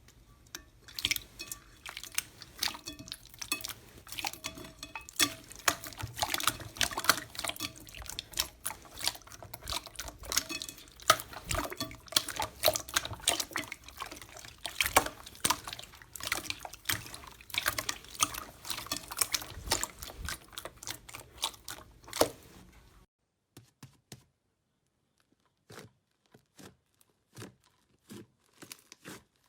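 Slime being squeezed and poked by hand, a dense run of wet clicks and pops. About 23 seconds in it drops away to a few scattered clicks.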